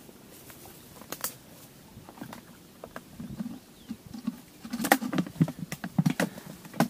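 Close handling noises: irregular clicks and pattering taps, one about a second in and then a busy cluster in the last two seconds, over faint muffled low sounds.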